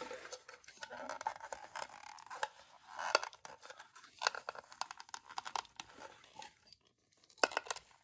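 Hands fumbling with an Edwards fire alarm pull station: scattered clicks, rubbing and scraping of its plastic housing as it is tugged one-handed without tripping it, so no alarm sounds.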